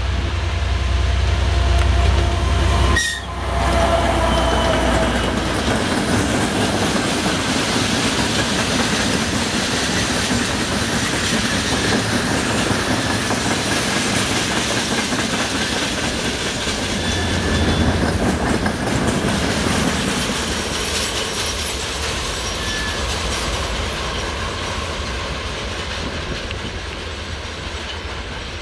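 DM62 diesel locomotive's two-stroke V12 diesel engine droning as it passes close by. About three seconds in, the sound drops away sharply. A long freight train of gondola and tank wagons then rolls steadily past on the rails, easing slightly as the train draws away near the end.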